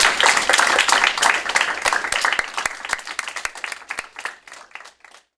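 Audience applauding in a small room: dense clapping that thins into scattered claps and fades away, stopping just before the end.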